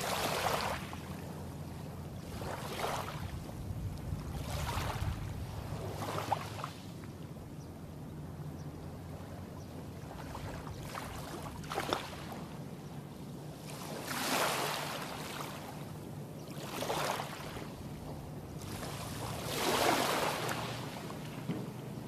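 Small, calm-sea waves washing onto a sandy beach, a soft rush of surf swelling and fading every few seconds, over a steady low hum.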